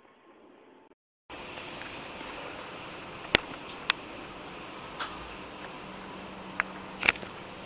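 Insects chirping in a steady, high-pitched chorus that cuts in abruptly about a second in, with a few sharp clicks over it.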